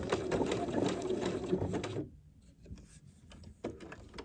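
Domestic sewing machine running a zigzag stitch in a rapid, even needle rhythm while reverse-stitching to secure the end of the seam. It stops abruptly about two seconds in, followed by a few faint clicks.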